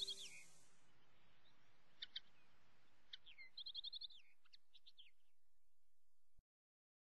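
Faint bird chirps, including a quick trill of repeated notes, over a quiet hiss as background music fades out. All sound cuts off suddenly near the end.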